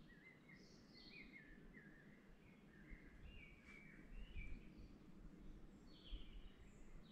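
Faint forest birdsong: a string of quick, high chirps and short warbled phrases from small songbirds, over a low rumble that swells now and then in the second half.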